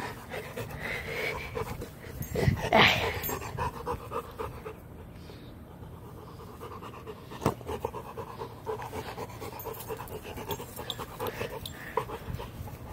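Dog panting quickly and steadily, out of breath from running. There is a louder burst of sound about two and a half seconds in and a sharp click about halfway through.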